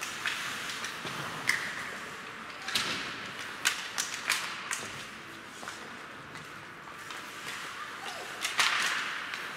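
Ice hockey play: skate blades hissing and scraping on the ice, with sharp clacks of sticks and puck, several close together around three to four and a half seconds in, and the loudest clack with a long scrape near the end.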